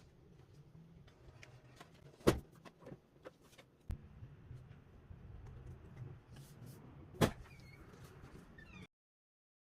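Food containers and items being handled and set down while a fridge is restocked: light clicks and rattles, with two sharp knocks about two and seven seconds in and a duller knock near four seconds, over a low hum. The sound cuts off abruptly near the end.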